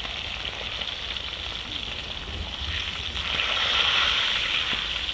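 Tomahawk steaks sizzling as they sear on a Cadac Skottel Braai gas griddle, a steady hiss with a few faint clicks. The sizzle grows louder about three seconds in, as a steak is turned onto the hot pan.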